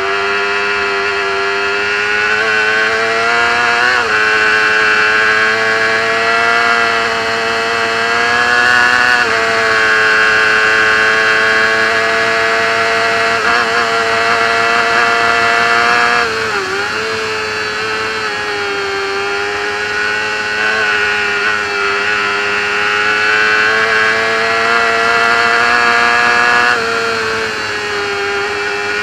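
Racing motorcycle engine at high revs, heard close up from the onboard camera at race speed. The note holds mostly steady and dips briefly and recovers about three times, around 4, 9 and 16 seconds in.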